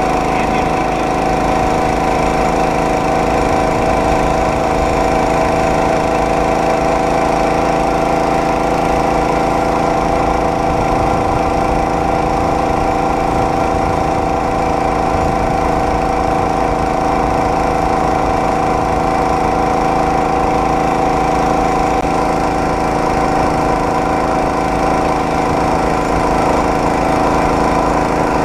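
Small engine of a homemade motorized rail cart running steadily at an even speed, holding one pitch throughout.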